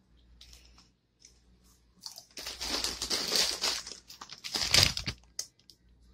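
Plastic bag of popcorn crinkling as it is tipped up and shaken, with a long rustle from about two seconds in to about four, then a second short, loud crackle of the bag just before five seconds.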